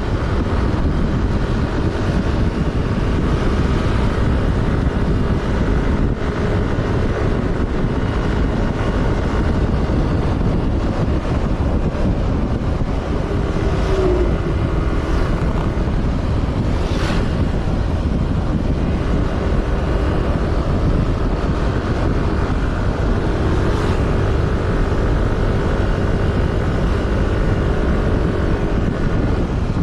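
A road vehicle on the move: steady engine, tyre and wind noise, the engine note drifting up and down a little now and then. A single sharp tick about seventeen seconds in.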